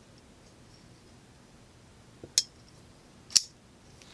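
Titanium frame-lock flipper knife with a ball-bearing pivot flicked open and snapped shut one-handed: two sharp clicks about a second apart, the second louder.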